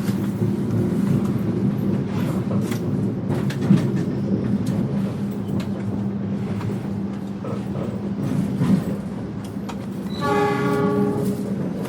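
Steady rumble of a passenger train running on the rails, heard inside the carriage, with a constant low hum and scattered clicks and knocks. Near the end the train horn sounds once for about a second and a half.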